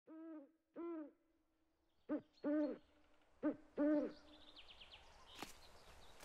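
An owl hooting: three double hoots, each a short hoot followed by a longer one, with faint clicking and a low background hiss after them.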